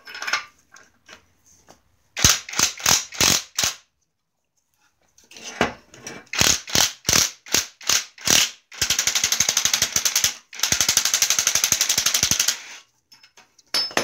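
Cordless impact wrench driving an oxygen sensor home into the exhaust manifold's catalytic converter. It fires in two groups of short trigger bursts, then hammers rapidly and evenly in two long runs of about two seconds each as the sensor tightens down.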